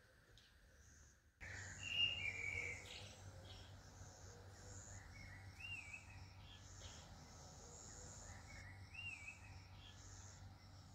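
Outdoor ambience of birds calling in a garden: short warbling chirps every few seconds over a steady high hiss and a low rumble, starting about a second and a half in.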